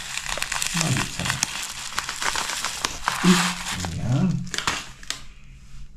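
Crinkling and rustling of packaging being handled, full of small crackly clicks, dying away about five seconds in.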